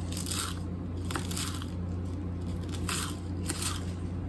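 Knife cutting fresh chives on a cutting board: a series of short slicing cuts at an uneven pace, over a steady low hum.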